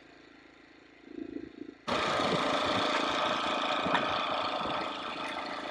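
An engine running steadily, cutting in suddenly about two seconds in.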